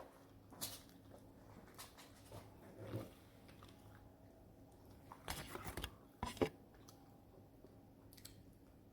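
Faint, intermittent crunching and clicking: a few isolated crunches, with a denser cluster about five to six seconds in.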